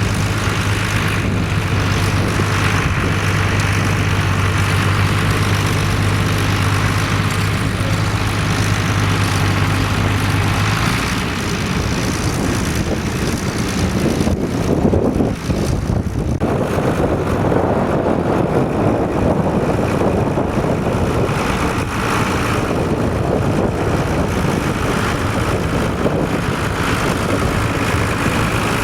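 Tractor engine running at a steady speed. For a long stretch in the middle its note is covered by a rushing noise like wind on the microphone, and it comes back clearly near the end.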